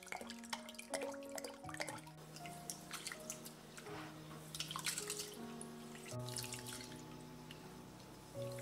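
Rice being swished and rubbed by hand in a glass bowl of water, with irregular splashes and drips, over background music of held notes.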